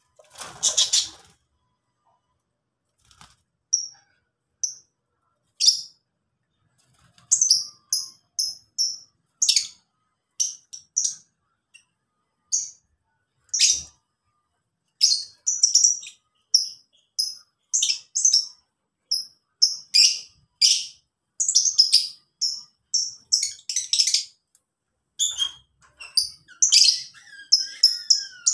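Lovebirds giving short, high-pitched chirps. The calls come in scattered ones and twos at first, then thick and fast from about halfway through.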